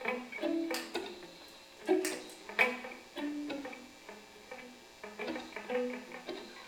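Electric guitars playing short, sharp plucked notes that die away quickly, scattered in an irregular, sparse pattern with several louder picks about two seconds in.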